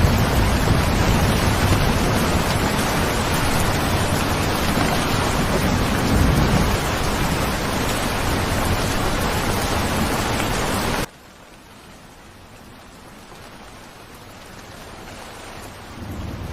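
Steady heavy rain, with low rumbles near the start and about six seconds in. About two-thirds of the way through it cuts abruptly to much softer, quieter rain.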